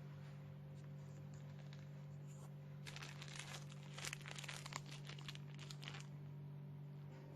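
Plastic crackling and rustling in a dense run of short clicks for about three seconds in the middle, over a steady low hum.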